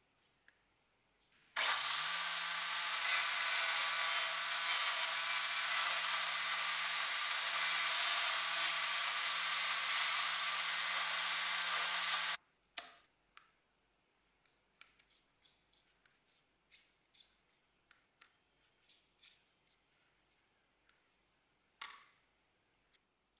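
An electric power tool working grey PVC sheet runs loud and steady for about ten seconds, then cuts off suddenly. Then a run of light clicks and taps follows as the cut plastic strips are handled and stacked.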